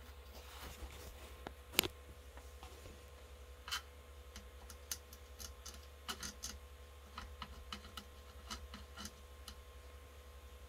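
Scattered light clicks and taps of hard plastic being handled and worked with a plastic-welding iron, one sharper click about two seconds in, over a faint steady low hum.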